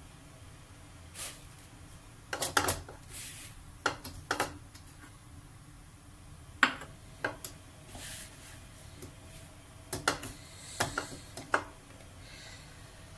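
Scattered clinks and knocks of a round metal tray and a bowl being handled while sugar is poured over shredded kunafa dough and mixed in by hand, with a couple of brief rustles.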